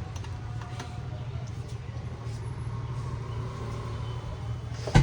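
Steady low hum with a few faint clicks, and one sharp knock near the end.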